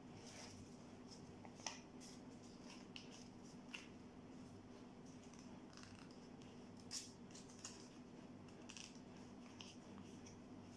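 Faint crinkling and rustling of black origami paper being creased and folded by hand, with a few sharper crackles, over a low steady hum.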